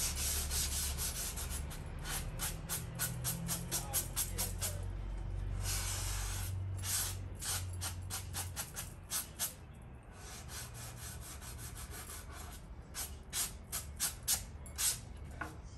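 Sandpaper rubbed in short quick strokes along the edge of decoupage paper on a painted wooden drawer front, sanding off and feathering the paper's edge. The strokes come in runs of several, about two or three a second, with brief pauses between runs.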